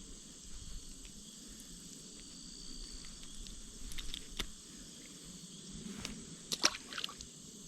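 Faint steady chorus of crickets and other insects, with a few short sharp clicks about four seconds in and twice more near the end.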